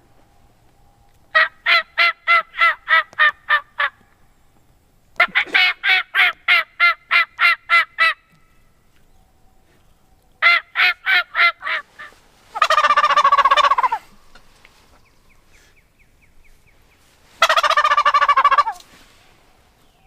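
Wild turkey calling: three runs of yelps, each a string of evenly paced notes at about four a second, followed by two gobbles a few seconds apart.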